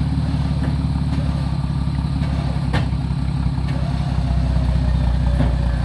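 Pickup truck engine idling steadily while a Harbor Freight Badland 12,000 lb electric winch hauls on a cable to a tree. A single sharp crack sounds near the three-second mark, and the low hum grows stronger about four seconds in.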